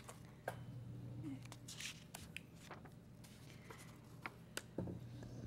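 Faint paper shuffling and a few small clicks and knocks picked up by the desk microphones, over a low steady hum.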